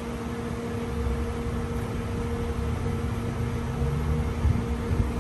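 Gas pump dispensing fuel: a steady electric hum from the running dispenser over an uneven low rumble.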